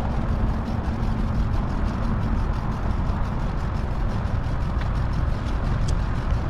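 Steady road and wind rumble from a bicycle ride, sped up to four times speed, with a steady hum in the first two seconds.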